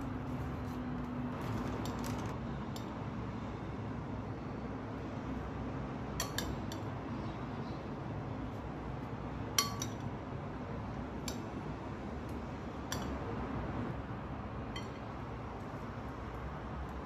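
About half a dozen scattered clinks of utensils against dishes, the sharpest one about ten seconds in with a short ring, over a steady background hiss.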